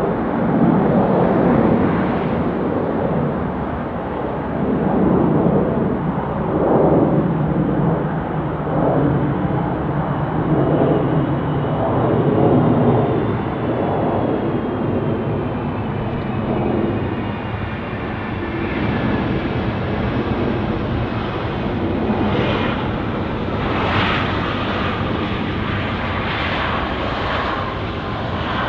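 Boeing 757 jet engines during a landing: a steady roar that swells and eases through the first half. From the middle on, a whine falls slowly in pitch as the engines wind down on the runway rollout.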